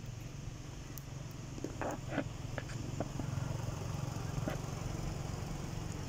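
A steady, low engine hum, such as a motorbike running at a distance, with a few short crackles about two seconds in.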